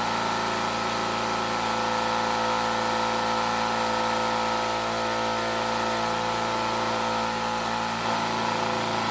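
Electric vibrator, a vibrating table, humming steadily with an even buzz, shaking wet plaster to drive the air bubbles out before it sets.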